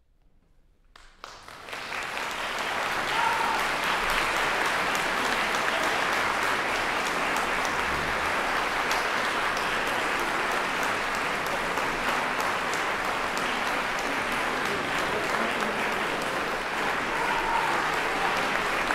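Near silence for about a second, then audience applause breaks out, swells within a second or so and holds steady as many hands clap.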